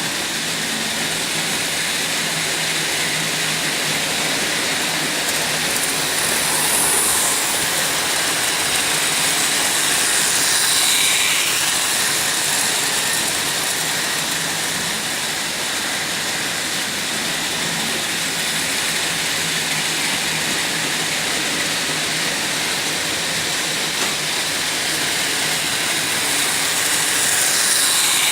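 Märklin model train running on its track: a steady whir from its small electric motor and wheels on the rails, with a couple of brief falling squeals.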